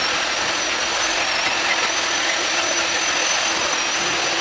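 Aerosol can spraying: one long steady hiss with a thin high whistle over it.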